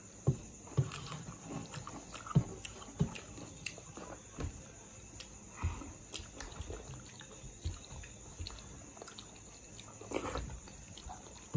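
Close-up eating sounds: wet chewing and lip smacks, with fingers working soft maize dhido and fish curry on metal plates. These come as irregular short smacks and taps, thickest in the first few seconds.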